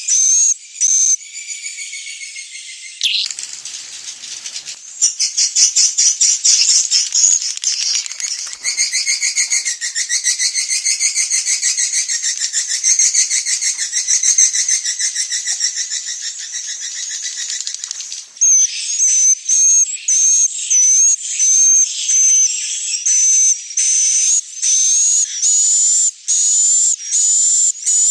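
Swiftlet calls of the kind played as a roosting lure: a series of short high chirps, then, from about 5 s to 18 s, a dense rapid buzzing twitter, then repeated chirps again, many with a falling tail.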